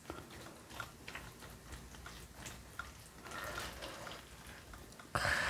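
A person eating: soft chewing and small clicking mouth and utensil sounds, then a louder crunchy bite near the end.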